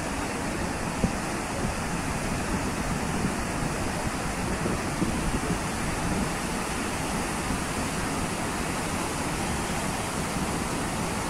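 Sea surf breaking on the shore, a steady rushing wash, with wind buffeting the microphone.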